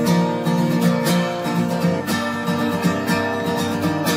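Background music led by a strummed guitar, with a steady rhythm of strokes.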